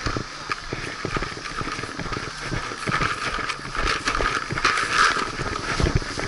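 Paintball markers firing in rapid, irregular pops, loudest about five seconds in.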